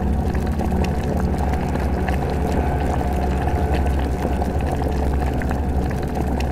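A steady hissing sound effect full of small crackles and pops, laid over a low droning music bed.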